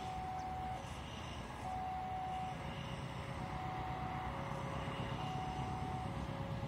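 An electronic two-tone warning alarm alternates between a higher and a lower note, each held just under a second. Beneath it runs a low rumble from the approaching train, which grows louder a couple of seconds in.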